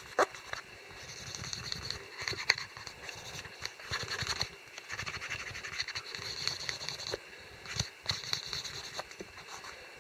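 A wooden dowel rubbed back and forth along the edge of a leather knife sheath, burnishing the edge: repeated scratchy rubbing strokes, with a few sharp clicks from the handling.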